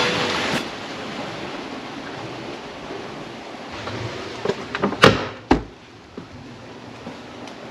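Water rushing steadily through a millrace past a waterwheel. About four and a half seconds in, an old wooden door is opened with a few sharp knocks and clunks.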